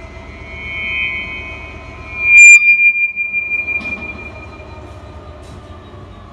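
Several high, steady squealing metallic tones. About two and a half seconds in, a sudden loud clang is followed by one high ringing tone that slowly fades.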